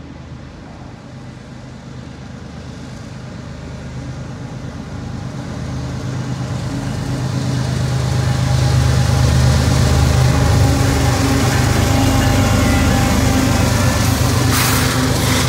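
Union Pacific diesel freight locomotives approaching and passing close by, their engines' steady low drone growing louder over about eight seconds and then holding as the lead units go past. A short hiss comes near the end.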